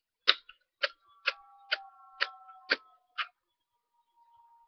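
Zippo lighter's spark wheel flicked repeatedly against a freshly fitted flint: seven sharp clicks about two a second, with a faint metallic ringing after them.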